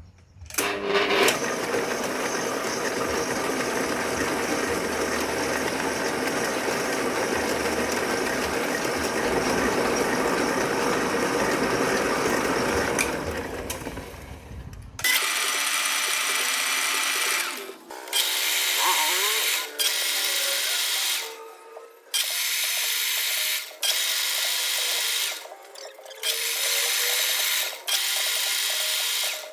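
Old metal lathe running while a single-point tool cuts a thread on the end of a steel shaft. It runs steadily for about the first half, then in short runs of two to three seconds with brief breaks between, as the thread is cut in repeated passes.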